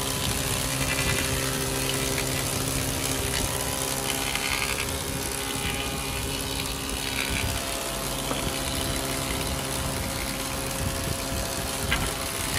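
Combination woodworking machine running steadily while a board is fed through its planer, the electric motor humming under the rushing noise of the cutterhead taking wood off. The cutting noise grows brighter a few times as the board bites.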